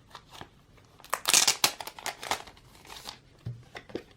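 Album inclusions being handled: paper and plastic rustling and crinkling, loudest in a burst about a second in, with smaller rustles after.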